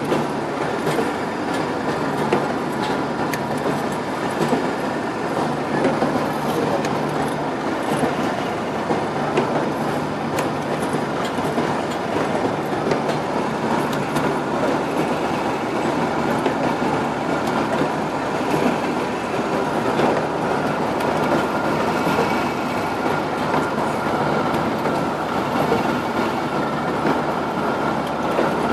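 Automatic CFL tube wiping and brushing machine running: a steady mechanical clatter of many small clicks over a constant hum.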